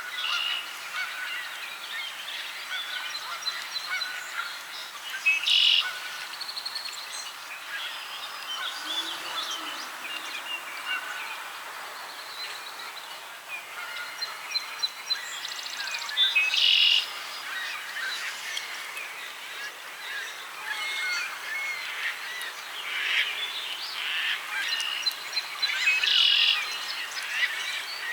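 Geese honking among many smaller birds chirping, with louder honking calls about five, sixteen and twenty-six seconds in.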